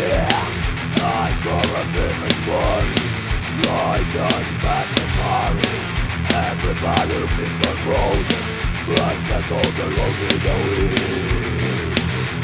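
Death/thrash metal band playing: distorted guitars and bass over steady, fast drum hits, with a melodic line bending up and down over the top.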